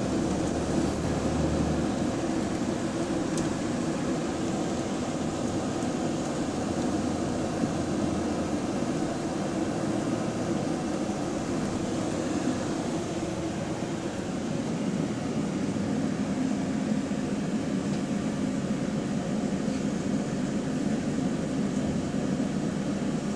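Double-decker bus engine running with a steady drone from its leaking exhaust. A deeper low tone drops away about two seconds in.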